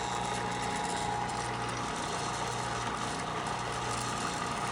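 Antique Walker Turner drill press running steadily on its original electric motor: an even, unchanging machine hum.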